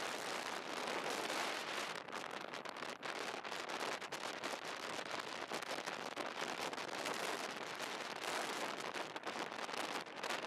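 Wind buffeting the microphone of a camera moving at riding speed: a steady rough hiss full of fine crackles.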